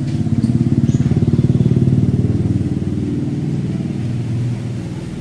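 An engine running with a rapid, even pulsing, growing louder over the first two seconds and then fading away.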